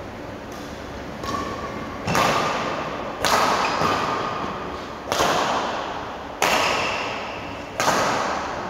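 Badminton rackets striking a shuttlecock in a rally: about seven sharp smacks, roughly one a second, each ringing on in the hall's echo.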